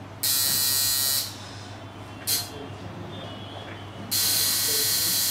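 An 8-wrap short-spring coil tattoo liner machine buzzing in bursts as it is switched on and off: a run of about a second at the start, a brief blip a little past two seconds, then running steadily from about four seconds in.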